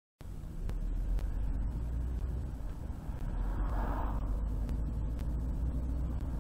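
Car driving along a highway: steady low road and engine rumble, with a brief swell in the middle range about four seconds in.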